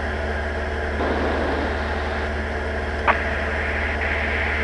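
Diamond DA40's engine and propeller running steadily, heard inside the cabin. A brief sharp click about three seconds in.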